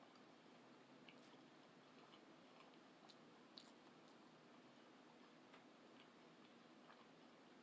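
Near silence, with faint, scattered soft clicks of someone chewing food with mouth closed.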